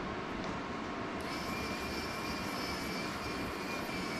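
Steady blowing noise like a small fan or blower running, with a thin high whine and extra hiss joining about a second in.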